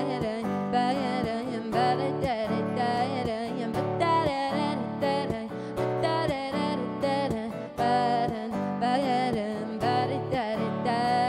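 Acoustic guitar strummed in a steady rhythm while a woman sings a melody over it.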